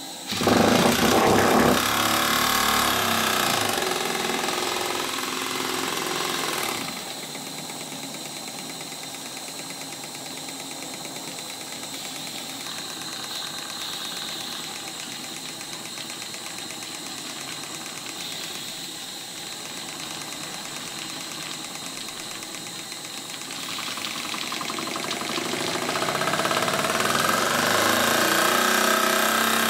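Stuart 10H horizontal single-cylinder model steam engine, turned over by hand at the flywheel and then running fast on live steam at about 35 psi. It is loud for the first few seconds, quieter through the middle and builds up again near the end.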